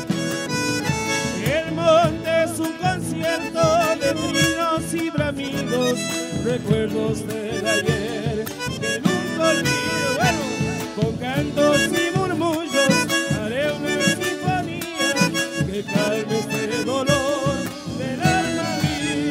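Live band music: acoustic guitars and drums playing under a wavering lead melody line.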